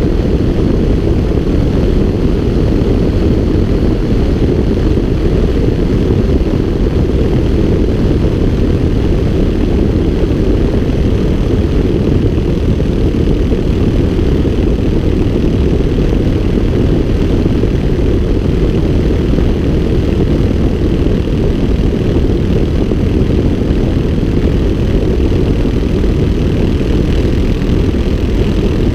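Light propeller aircraft in cruise: a steady engine-and-propeller drone mixed with wind rushing over the microphone, unchanging throughout.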